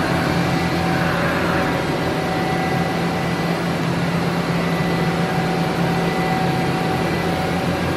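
Steady hum of powered-up machine-shop equipment: a low electrical and motor drone with a couple of faint steady whines above it, unchanging throughout.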